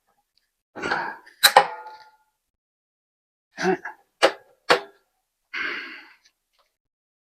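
A few sharp clicks and knocks from hand work on the mini bike. One click, about a second and a half in, has a brief metallic ring, and there are short rustles around them.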